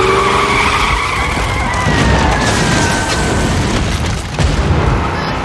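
Limousine tyres squealing as the car accelerates hard, one long screech that slowly falls in pitch and fades out over about three seconds. Under it runs a heavy low rumble with engine noise, and a jolt comes near the end.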